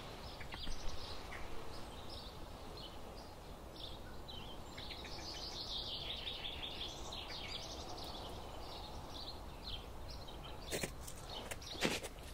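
Small songbirds chirping and singing in a conifer forest, busiest in the middle. Near the end come a few crunching footsteps on snow.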